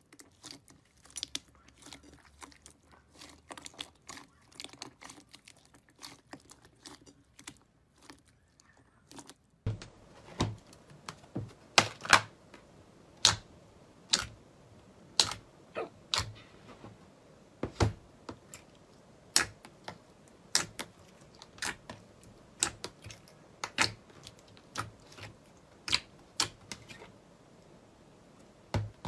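Slime being kneaded and poked by hand, popping with sharp clicks as air pockets in it burst. At first a dense crackle of small clicks; after about ten seconds, louder single clicks about once a second.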